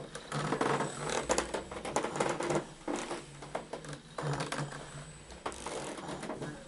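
Ninebot One S2 electric unicycle's motor whirring on and off as the wheel rocks forward and back on carpet, under a dense crackle of clicks and rustling.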